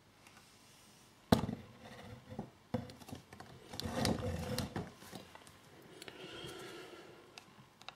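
Handling noise from small plastic earbuds and their charging case on a cloth-covered table: a sharp knock about a second in, a second knock near three seconds, then lighter tapping and rubbing.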